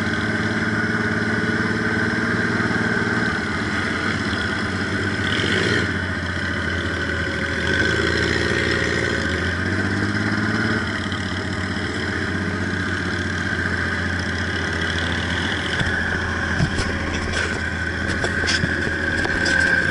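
Dune buggy engine running under way on a dirt road, heard from the driver's seat, the engine note rising and falling with the throttle. A few sharp knocks come near the end.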